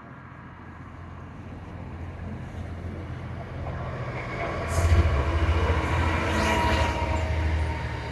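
A train approaching and passing close by: a low rumble that grows steadily to its loudest about five seconds in, with a higher whine over it in the second half.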